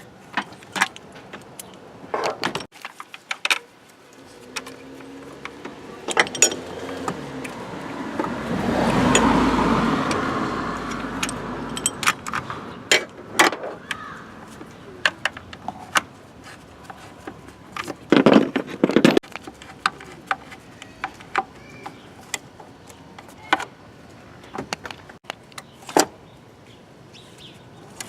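Scattered metallic clinks and knocks, like hand tools and small metal parts being handled, with a louder clatter about eighteen seconds in. A broad rush of noise swells and fades around ten seconds in.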